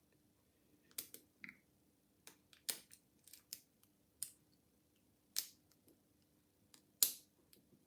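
Small, sharp metallic clicks at irregular intervals from a hacksaw-blade pick raking and lifting the pins of a 5-pin Euro cylinder lock held under a tension tool, the pins setting as it is picked. The loudest click comes near the end.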